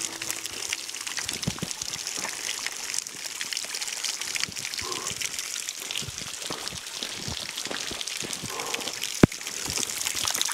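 Shallow water trickling over rock, with footsteps splashing and scuffing on wet stone and leaf litter, making many small clicks, and one sharp click about nine seconds in.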